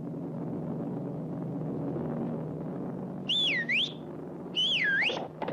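Cartoon sound effects: a low steady drone, then two loud swooping whistles a little over a second apart, each dipping in pitch and sliding back up.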